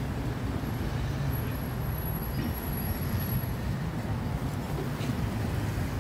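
Steady low rumble of street traffic and outdoor market background noise. A faint, thin high-pitched whine sounds for about two seconds starting just under a second in.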